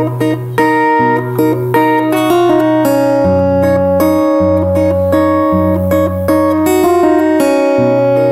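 Solo acoustic guitar playing the opening of a song: ringing chords with the bass note changing every second or so.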